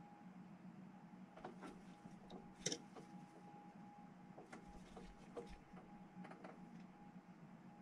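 Near silence: a faint steady room hum with scattered small clicks and taps from a miniature on a plastic painting handle being turned and regripped, one sharper click about two and a half seconds in.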